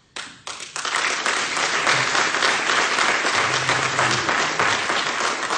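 Audience applauding: a few scattered claps, quickly building into dense, steady applause that begins to thin out near the end.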